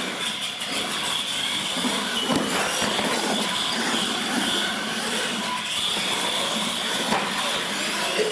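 Radio-controlled monster trucks running on a concrete floor: a steady high whine of motors and gears mixed with the grinding of tires on the concrete.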